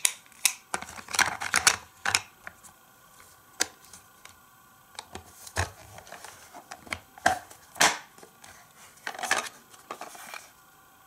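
Hard plastic toy parts clacking and clicking as stacked plastic road pieces are packed into a plastic carrying case and the case is shut, a dense run of clicks at first, then single sharp clicks every second or so.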